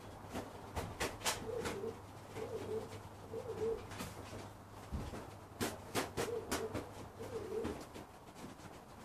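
Racing pigeons cooing in the loft, a low burbling coo repeated about once a second. Sharp taps come in two clusters, about a second in and again around six seconds in; these are the loudest sounds.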